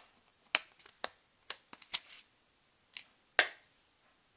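Small cardboard eyeshadow palettes and their cardboard storage box being handled: about eight light, sharp clicks and taps, the loudest a little past three seconds in.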